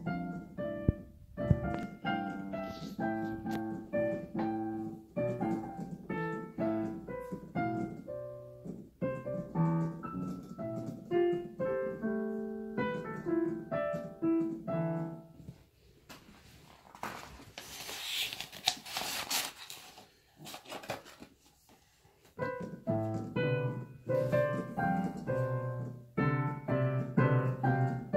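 Digital piano played by a child: a simple piece of single notes over low chords. Past the middle the playing stops for several seconds, with a short rustling noise in the gap, then starts again.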